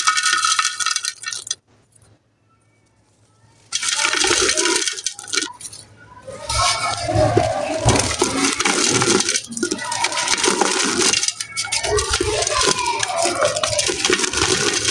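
Dry gritty mud or sun-dried clay being crushed and crumbled, a dense gritty crunching and crackling that starts about four seconds in after a short pause and continues with brief lulls.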